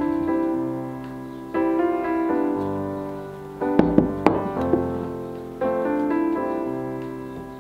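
Soft background piano music playing slow, changing chords. A little under four seconds in come two light knocks as the stoneware rice pots are set back down on the wooden table.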